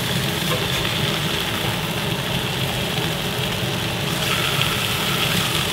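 Redfish fillets sizzling steadily in hot oil in a cast-iron skillet as a spatula turns them over, under a steady low mechanical hum.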